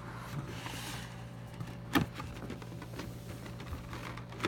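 Handling noise from a plastic transforming-robot figure: light rustling and small knocks, with one sharp plastic click about two seconds in and another near the end, over a steady low hum.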